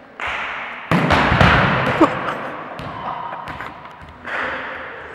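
A hard thump about a second in over a rushing noise that slowly fades, with a short falling squeal about two seconds in: a person tumbling onto a wooden gym floor.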